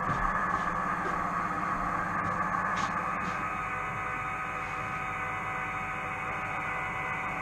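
Model train running on a layout: a steady hum from the locomotive's motor and wheels on the track, with a faint steady tone coming in partway through.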